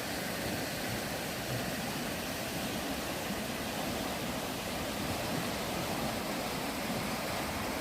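Fast-flowing water rushing with a steady, unbroken noise.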